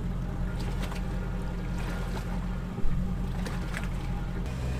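A vehicle engine idling steadily, with a few light clicks and one sharp knock about three seconds in.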